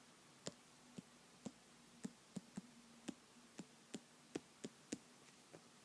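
Faint, irregular light taps and ticks, about a dozen over a few seconds, of a pen writing on a hard surface.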